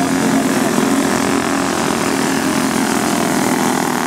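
Small engines of several caged racing karts running at racing speed, a steady loud buzz with held pitches that drift slightly as the karts lap.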